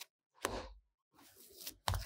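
Kneaded yeast dough slapped down by hand into a glass bowl: two dull thumps, about half a second in and near the end, with softer rubbing of dough against the glass between them.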